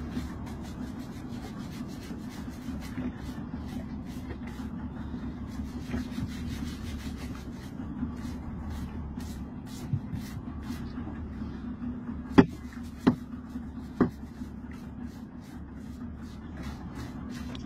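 A hand blade scraping barnacles off a sea turtle's shell in many short strokes, with three sharp knocks a little past twelve, thirteen and fourteen seconds in. A steady low hum runs underneath.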